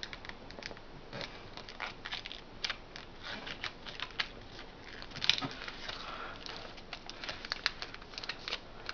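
Sheet of paper being folded and creased by hand: irregular light rustles, crinkles and clicks of paper sliding and pressing, with a few sharper crease strokes about halfway through.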